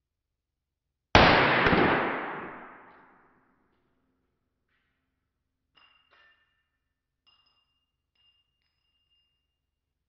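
A single shot from a long-barrelled Luger P08 (Lange P08) pistol in 9mm Parabellum, fired about a second in and dying away in the range's reverberation over about two seconds. A few faint metallic clinks with a thin ringing follow a few seconds later.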